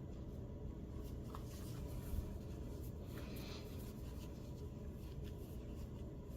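Faint scratching and rustling of yarn being drawn through crocheted stitches while a crocheted arm is sewn on, with a few soft scratches in the middle and one small knock about two seconds in, over a low steady hum.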